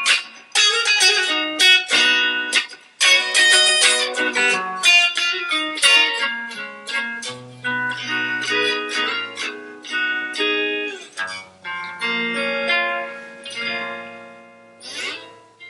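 Fender Stratocaster electric guitar with a roasted ash body, played through an amplifier: quick runs of picked single notes and chords, easing into longer ringing notes near the end.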